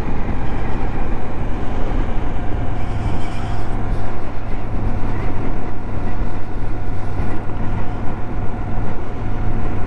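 Moto Guzzi V85TT's air-cooled transverse V-twin running steadily under way at cruising speed, with a constant wind and road rush.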